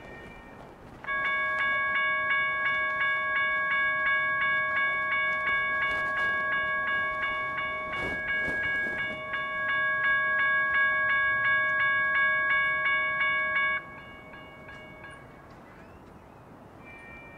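Railroad crossing warning bell ringing in rapid, even strikes at a light rail grade crossing while the signals flash. It starts about a second in and cuts off suddenly near the end.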